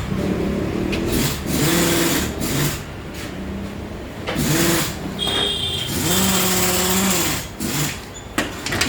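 Yamaha FZ V3's single-cylinder engine running on freshly changed oil, revved up and let back down several times.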